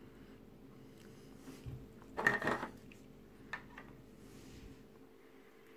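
Brief light clatter of hard plastic model-kit parts being handled, knocked and set down, followed about a second later by a single small click, over a faint steady hum.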